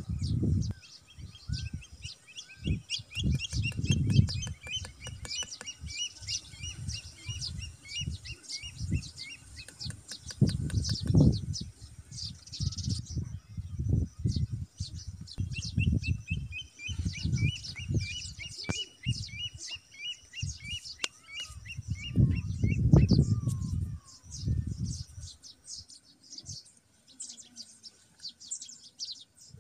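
Small birds chirping, with quick runs of repeated short notes, over irregular low thumps and knocks from handling twigs and sand.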